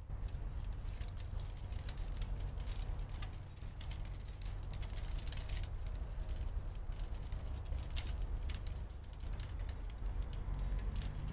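Wind rumbling on the microphone, with irregular light clicks and crackles scattered over it.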